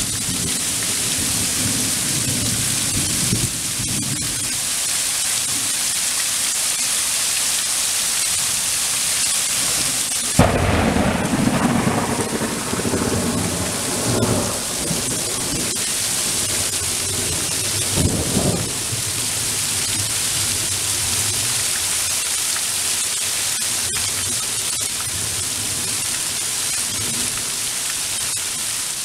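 Heavy rain pouring steadily in a thunderstorm. About a third of the way in, a sudden loud thunderclap rumbles on for several seconds, followed by a shorter rumble a few seconds later. The sound is a bit rough, which the uploader puts down to a water droplet in the microphone.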